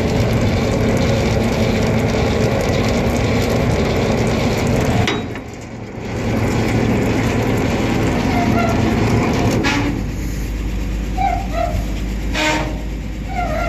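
The PTO-driven winch of a 1954 Chevrolet tow truck running under engine power, a steady mechanical clatter and grind. It breaks off for about a second about five seconds in, then starts again, and turns quieter near the end with a few short squeaks.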